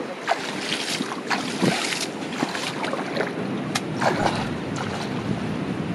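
Shallow water sloshing and splashing as a hand works through it at the foot of a muddy bank, with irregular small splashes throughout.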